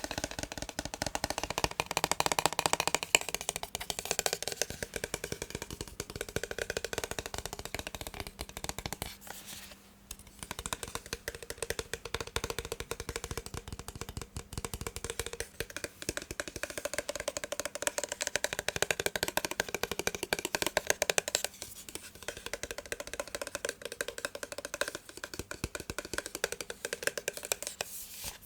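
Fast, irregular tapping on a massage gun's casing: a dense run of small clicks that briefly lets up about a third of the way in and again near the end.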